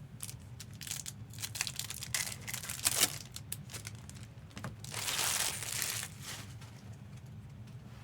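Plastic trading-card packaging crinkling and tearing as a sealed box or pack is opened: crackling handling for about three seconds, then a longer tearing rip about five seconds in.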